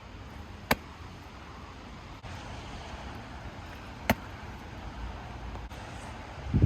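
Strong wind buffeting the microphone, with two sharp slaps of a wet football being snapped and caught, about three seconds apart.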